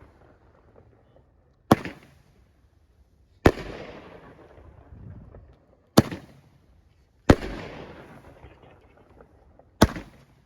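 Consumer fireworks going off: five sharp bangs spaced irregularly, one to two and a half seconds apart, each trailing off over a second or so.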